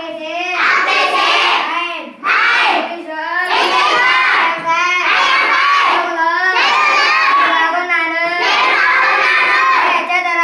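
A group of schoolchildren chanting short phrases together in loud unison, one phrase every second or two with brief breaks between.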